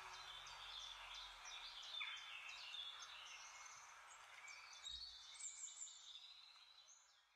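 Faint birdsong: many short chirps from birds over a steady outdoor hiss, fading out near the end.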